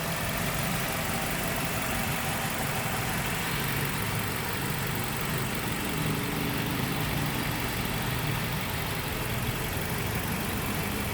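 Nissan QR20DE 2.0-litre four-cylinder engine idling steadily, with a loud cam noise and a faint chirping or squeaking that the owner figures is most likely from the timing belt.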